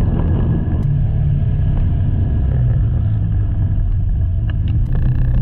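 A motorcycle riding on a highway in traffic: a loud, steady, low rumble of engine and road noise.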